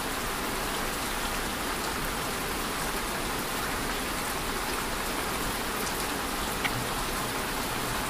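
Steady, even hiss like light rain, holding one level throughout.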